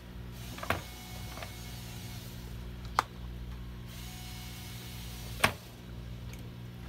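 A steady low hum with a few sharp clicks or taps: a faint one about a second in, a sharp one near the middle and the loudest about five and a half seconds in.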